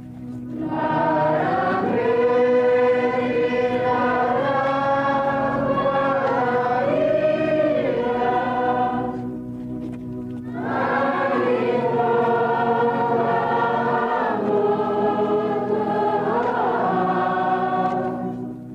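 A choir singing a hymn in long phrases of held notes, with a brief pause about nine seconds in before the next phrase begins.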